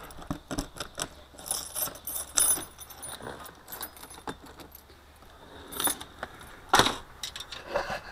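Keys jangling and clicking in a camper's door-knob lock as it is unlocked, followed by rattling and clicking of the metal entry door and screen door being opened, with one loud knock about seven seconds in.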